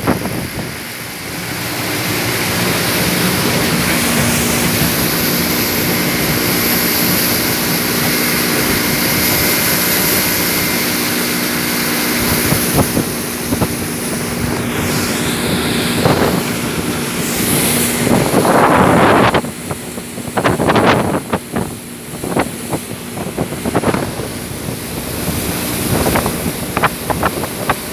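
Motorboat under way: the engine runs with a steady hum, under heavy wind buffeting on the microphone and rushing water. After about 18 seconds the engine tone fades out and the wind and water come in irregular gusts and splashes.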